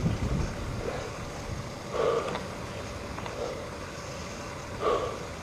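Steady rush of airflow and aircraft engine noise at the open door of a jump plane at altitude, with a few brief muffled sounds about two seconds in and near the end.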